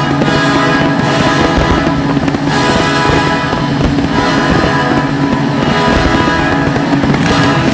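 Loud music playing through the show's loudspeakers, with firework shells bursting over it.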